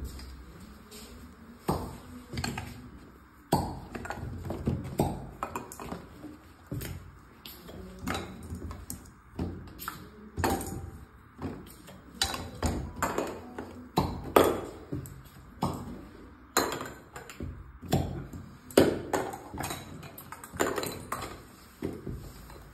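Plastic cupping cups and a hand vacuum pump, handled, pumped and taken off the back: irregular sharp clicks, taps and clinks, some quite loud.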